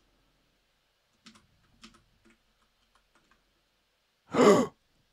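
A few faint computer keyboard keystrokes, then, about four seconds in, a brief loud wordless vocal sound from a man.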